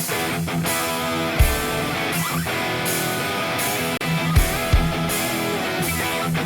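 Rock music with distorted electric guitar over a steady drum beat.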